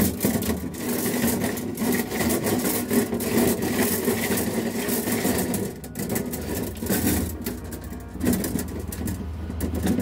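A coil of quarter-inch copper tubing being unrolled across a freezer's aluminium liner: a rapid, continuous metallic rattling and scraping as the turns shift and drag on the sheet metal, easing briefly about six seconds in.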